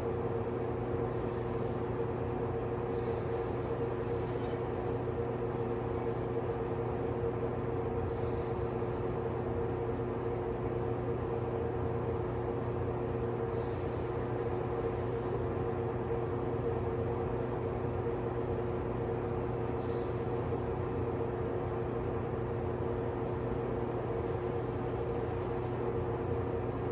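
A steady, unchanging machine hum made of several fixed tones, like a fan or other running appliance.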